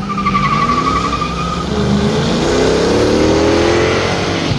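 Two classic American muscle cars launching side by side off a drag-strip start line, their engines revving hard and climbing in pitch, dropping at a gear change about two seconds in, then climbing again. A warbling tyre squeal sounds through the first second and a half.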